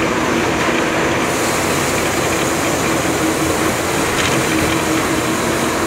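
Steady road and engine noise heard from inside a moving vehicle, with a low steady hum underneath.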